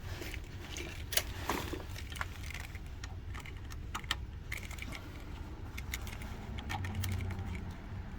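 Scattered small metallic clicks and taps as a laser-cut car key is fitted into the clamp of a Gymkana 994 key-cutting machine, over a low steady hum.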